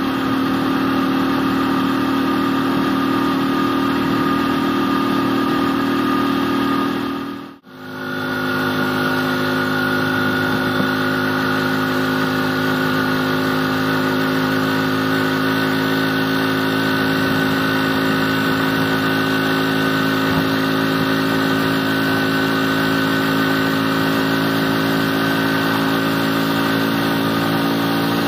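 Small motorcycle engine running steadily at cruising speed, heard from the rider's seat with a constant droning note. The sound dips out briefly about seven and a half seconds in, then carries on at much the same pitch.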